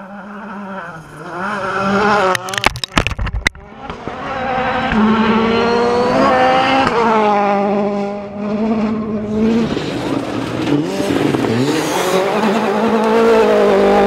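Rally cars at full throttle on gravel, engines revving up and falling back through gear changes as they pass, with a rapid cluster of sharp cracks about two to three seconds in. Near the end a Ford Fiesta rally car's engine rises as it slides through a gravel corner.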